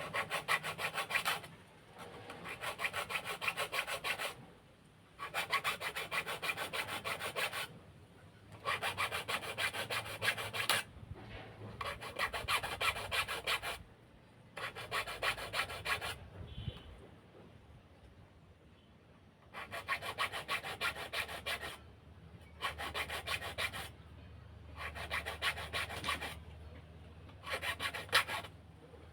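A hand tool scraping across wood in quick repeated strokes: about ten runs of one to three seconds each, separated by short pauses, with a longer pause roughly two-thirds of the way through.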